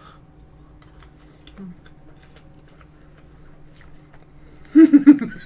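Faint small clicks of a person chewing soft tiramisu, then near the end a short, loud run of four or five closed-mouth chuckles.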